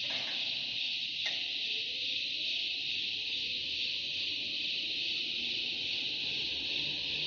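A steady high-pitched hiss that starts abruptly, with a faint click about a second in.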